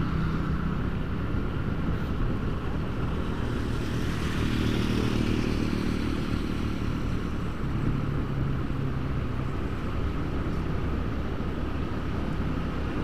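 Motorcycle engine running steadily while riding along a town road, with road and wind noise. The engine note rises for a couple of seconds about four seconds in, then drops lower again.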